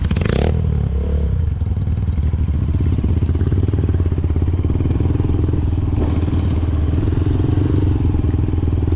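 Dirt-bike engine running steadily at low speed while riding through loose sand, with a short rush of noise just after the start.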